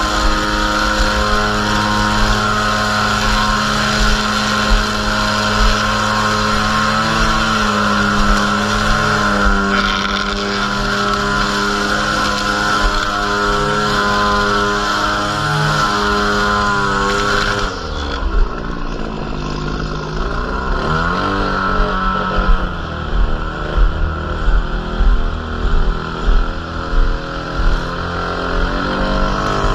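Gas string trimmer's small engine running at full speed while edging grass. About 18 seconds in it drops toward idle, its pitch falling and then climbing again. Near the end it is revved in short repeated bursts before settling back to full speed.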